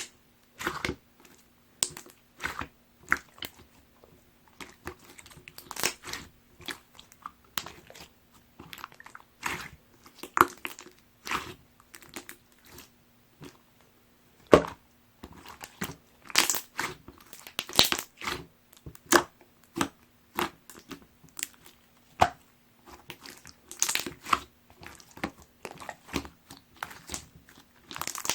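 Clear slime full of cut plastic straw pieces being squeezed and kneaded by hand, giving irregular crunching and crackling clicks, several a second.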